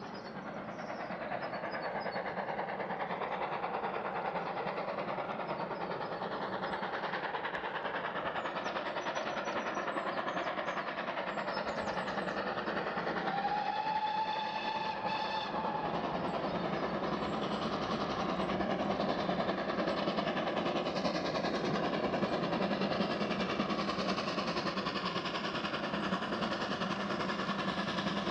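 A GWR Manor-class two-cylinder 4-6-0 steam locomotive, 7828 Odney Manor, works a passenger train uphill, its exhaust and running noise growing steadily louder as it approaches. About halfway through, a short whistle blast of a couple of seconds sounds.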